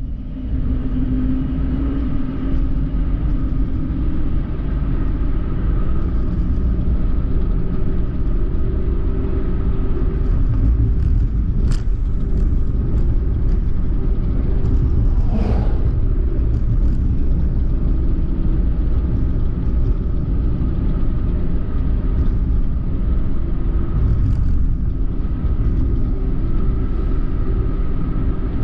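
Suzuki Hustler kei car driving along a road: a steady rumble of engine and tyre noise, with a brief click about twelve seconds in.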